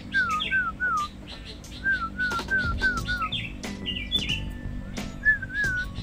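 A sooty-headed bulbul singing runs of short, clear whistled notes, each dipping and then rising, several a second. Higher, thinner chirps from other small birds come in partway through.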